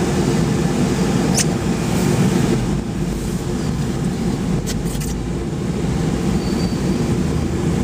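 A car driving, heard from inside the cabin: a steady low rumble of engine and road noise, with a few faint clicks about a second and a half in and again around five seconds in.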